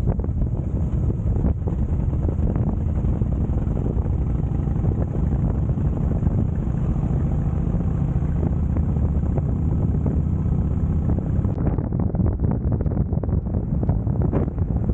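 Harley-Davidson Heritage Softail Classic's air-cooled V-twin running at steady road speed, with wind buffeting the microphone.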